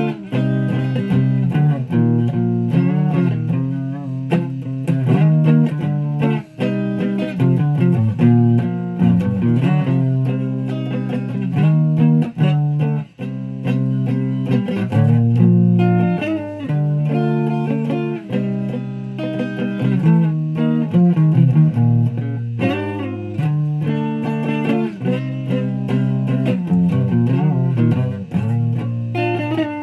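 Guitar being played: a continuous run of plucked notes and chords low in pitch, with no singing.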